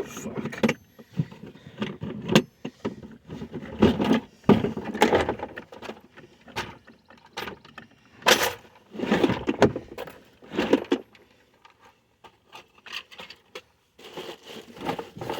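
Rummaging through a tackle box: hard plastic and metal items clattering and scraping in irregular bursts, with sharp clicks.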